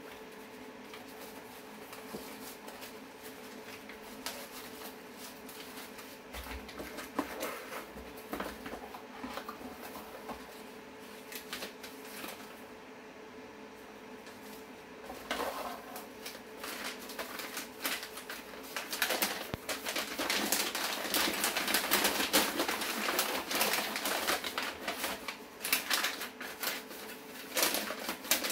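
Sparse light taps of a small cardboard box being handled and opened. From about halfway through, packing paper rustles and crinkles as it is unwrapped, loud and dense, over a faint steady hum.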